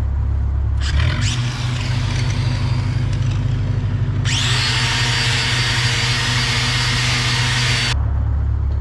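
Angle grinder running about a second in, then grinding hard against steel pipe for about four seconds with a steady high whine, stopping near the end. Underneath, an engine-driven welding machine runs steadily, stepping up from idle as the grinder starts and dropping back when it stops.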